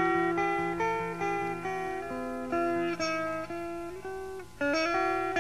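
Guitar music: a melody of picked notes, each ringing out, over a held bass note, with a short break about four and a half seconds in before the next phrase.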